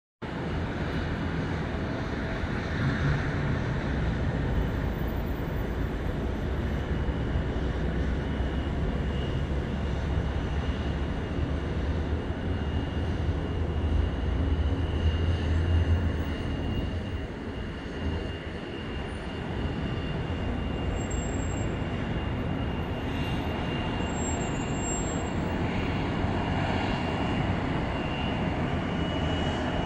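Airbus A321neo's Pratt & Whitney geared turbofan engines heard from a distance: a steady rumble, heaviest in the first half, with a thin high whine joining about a third of the way in.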